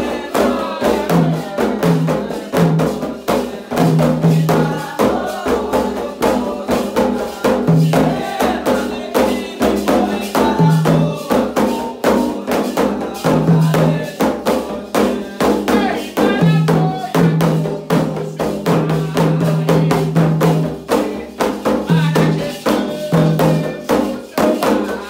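Candomblé ritual drumming: atabaque hand drums beaten in a fast, unbroken rhythm, with voices singing the chants over them.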